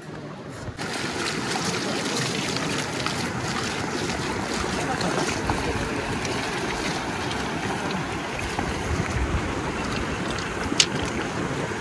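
Mountain river water rushing steadily, coming in strongly about a second in, with a single sharp click near the end.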